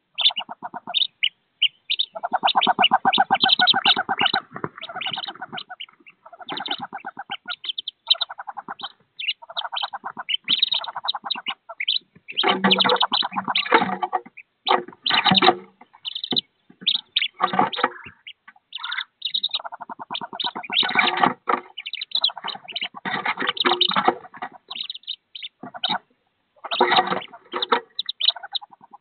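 Wood duck ducklings peeping rapidly and continuously inside a wooden nest box, mixed with lower, rasping calls that come in bursts of a second or two.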